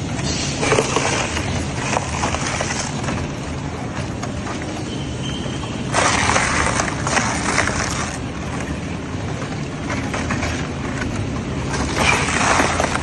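Twin-shaft tyre shredder running, a steady low drive hum under bursts of crunching and tearing as its intermeshing toothed cutter shafts grip and bite into a whole tyre. The crunching is loudest about six seconds in and again near the end.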